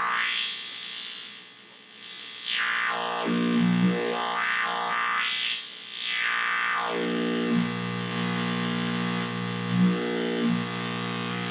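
A buzzing oscillator tone through a Yusynth Steiner voltage-controlled filter (dual-transistor, CA3086 version) on a breadboard synth, the cutoff swept by hand with resonance turned up. The resonant peak rises and falls twice, with a shorter sweep near the end. The amplifier is clipping the signal slightly, giving it a harsher edge.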